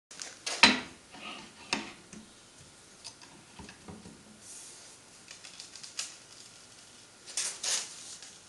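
A large adjustable wrench knocking and clinking against a steel handrail bar as it is fitted over the bar's end. There are a few sharp metallic knocks, the loudest about half a second in, and a quick cluster near the end.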